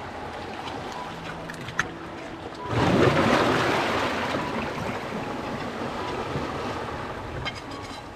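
Seawater surging in among shoreline rocks: a sudden rush of water about three seconds in that slowly dies away. Before it come a few light clicks of an iron blade working against oyster shell.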